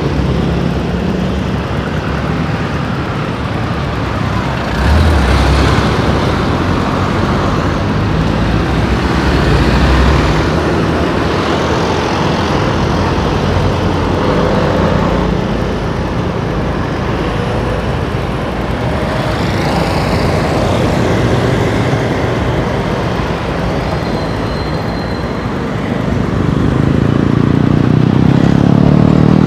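Steady road traffic of cars, motorcycles and buses passing close by on a busy road. A few low thumps sound around 5 and 10 seconds in, and an engine grows louder near the end as a vehicle draws alongside.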